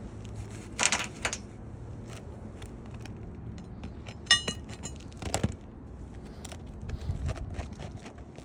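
Handling noise of scrapes and light knocks, with one sharp, ringing metallic clink about four seconds in.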